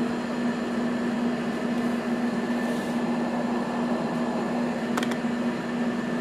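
Steady background machine hum with a constant low tone, and a single short click about five seconds in.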